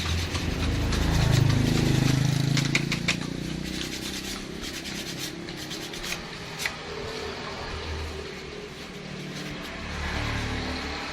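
Rubbing and scraping as telolet horn parts are scrubbed clean, with a few sharp clicks from handling them. A low droning hum underneath is loudest in the first few seconds.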